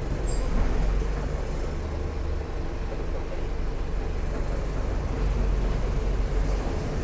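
Diesel engine of a Mercedes-Benz OF 1418 bus running under way, a steady low drone that swells slightly a couple of times.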